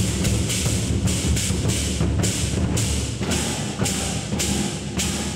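Several large lion dance drums beaten together with sticks in a steady rhythm, about two strokes a second.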